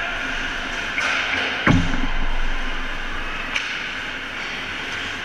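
Ice hockey play in front of the net: skates scraping on the ice over a steady arena din, with a sharp clack about a second in, one heavy thud about a second and a half in that rings briefly, and another clack near three and a half seconds.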